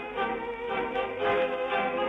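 Tango orchestra playing an instrumental passage with no singing, violins carrying the tune. The sound is dull and narrow, with no treble, as on an old record.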